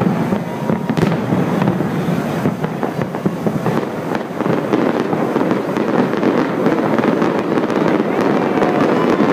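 A fireworks display going off: a dense, continuous run of bangs and crackling pops.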